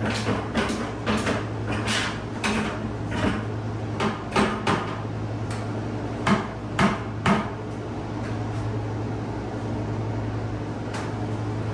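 A quick run of household knocks and clatters, loudest about six to seven seconds in, then they stop, leaving a steady low hum.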